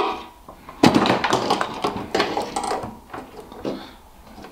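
Spring-loaded crocodile clips of a 12 V battery charger being clamped onto a battery's terminals inside a metal ammo box. A sharp click comes about a second in, followed by a couple of seconds of clattering and knocking of the clips and leads, then it quietens.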